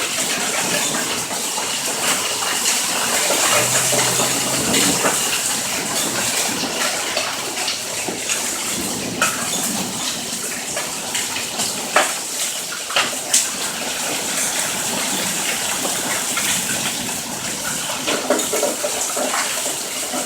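A hailstorm: a steady downpour of rain and hail with hailstones striking hard surfaces. Several sharp, louder hits stand out around the middle.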